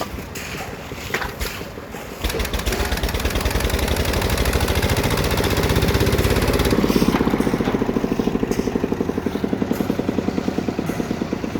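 A small engine starts up about two seconds in and runs with a rapid, even pulsing beat. Its note shifts higher about seven seconds in.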